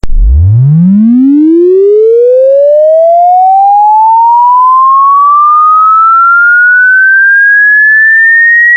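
Electronic tone sweeping smoothly and continuously upward from a deep hum to a high whistle, one long unbroken rise, very loud. It is a prank sound played to see how dogs react.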